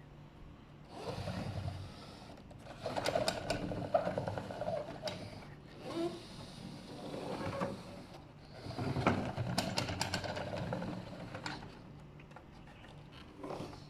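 Steel Tonka toy bulldozer being handled, its metal parts clattering and rattling in several short bursts.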